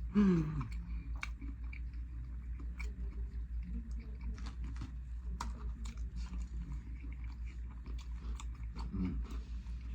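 Close-miked chewing and biting of a burger topped with Takis chips, with wet mouth clicks and light crunches at a steady rhythm of about three chews a second. A low steady hum runs underneath.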